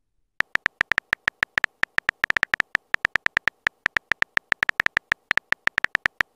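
Phone keyboard typing clicks: a quick, uneven run of short ticks, one per letter as a text message is typed out, starting about half a second in.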